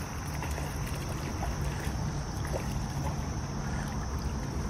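Steady rush of a fast-flowing muddy creek.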